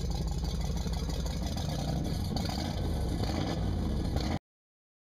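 Volvo Penta 5.7 GI V8 stern-drive engine running steadily, its exhaust exiting through Corsa Captain's Call side-exit thru-hull tips with a deep low rumble. It cuts off suddenly near the end.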